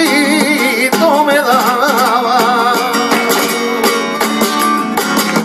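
Male flamenco cantaor singing colombianas through a microphone, with a wavering, ornamented vocal line over acoustic flamenco guitar accompaniment.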